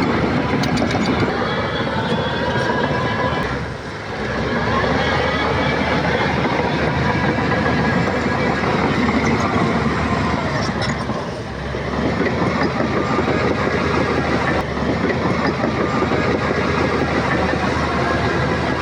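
Shantui bulldozer's diesel engine running under load, with its steel tracks clattering. The engine eases off briefly twice, about four and eleven seconds in.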